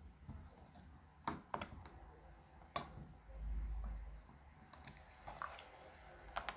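Scattered light clicks and taps of small screwdrivers and a mini USB desk fan's casing being handled on a work surface, with a brief dull low rumble about halfway through.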